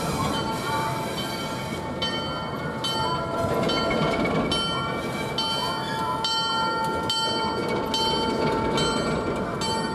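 Train behind an Alco S-4 diesel switcher locomotive running on the rails with a steady rumble. From about two seconds in, a bell rings over it in an even rhythm of roughly one and a half strikes a second.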